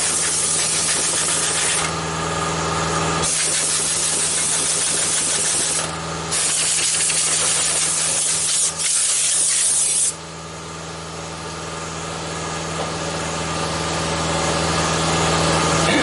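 Compressed air from an air compressor hissing in long blasts into a desktop PC case, with a short break about six seconds in; the blasting cuts off about ten seconds in, leaving a quieter hiss that slowly grows. A steady motor hum runs under the first three seconds and comes back near the end.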